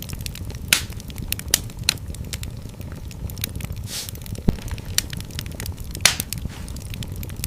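Wood fire in a fireplace crackling, with frequent sharp pops and snaps, several louder ones scattered through, over a low steady rumble of the flames.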